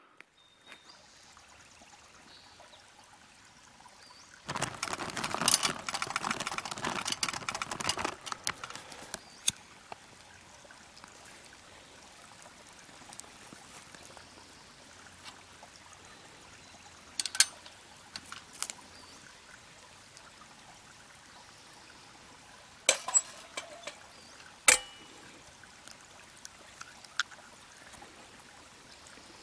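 Wood pellets poured into a Vargo titanium hexagon wood-gas stove: a dense rattle of small hard pieces about four seconds in, lasting about three seconds. Scattered sharp clicks and knocks follow, the last of them eggs being cracked on a small frying pan.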